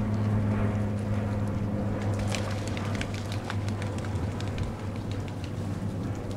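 Water lapping and dripping around kayaks near the jetty pilings, with many small sharp splashes from about two seconds in, over a steady low hum.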